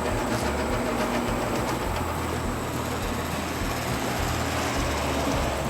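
Steady mechanical running noise with a low hum that cuts in and out every second or so.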